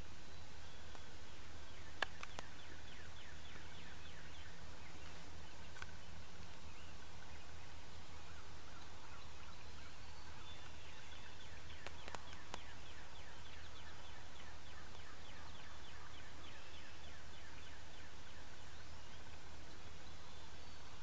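Wild turkeys calling softly in a long run of faint, short, repeated calls over a low steady hum, with two sharp clicks, one about two seconds in and one about twelve seconds in.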